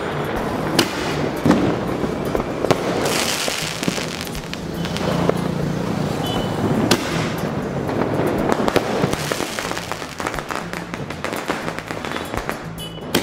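Crackling aerial firework shells: a dense spray of many small rapid pops from crackling stars, swelling and easing in waves, with a few louder sharp cracks among them.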